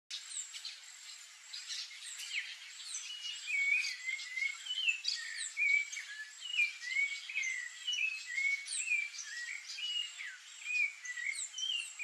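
Birds chirping: a run of short, hooked calls at about two a second, with sharper, higher chirps mixed in. A faint, high, steady pulsing tone sits behind them.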